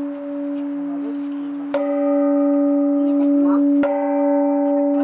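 Large bronze Japanese-style temple bell struck twice by a wooden log hung from ropes, the first stroke just under two seconds in and the second about two seconds later. Its low tone rings on steadily between and after the strokes, with higher overtones that come back fresh at each stroke.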